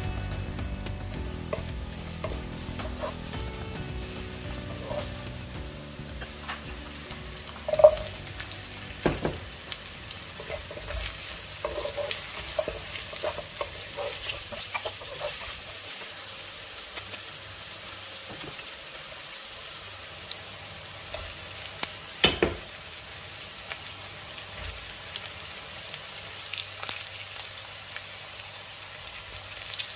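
Sliced onion, ginger and carrot sizzling in hot oil in a non-stick wok. A wooden spatula stirs them, with a few sharp knocks against the pan, the loudest about eight seconds in and again a little past twenty seconds.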